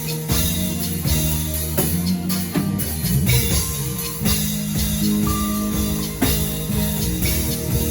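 Live worship band playing: drum kit hits over sustained keyboard chords and bass guitar, with no voice on top.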